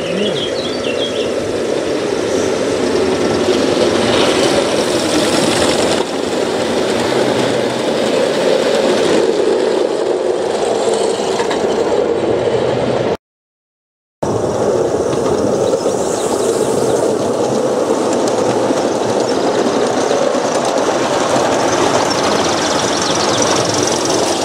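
Gauge 1 model train rolling along a garden railway track: a steady rumble of wheels on rails. It cuts out for about a second midway.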